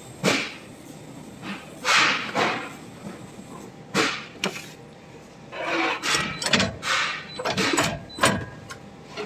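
Irregular thumps and scraping as a mass of biscuit dough is packed down into a biscuit-cutting machine's hopper and pushed out under its roller, about a dozen separate knocks and scuffs.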